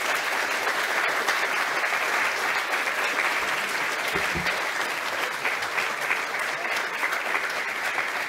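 Audience applauding: dense, steady clapping from many people.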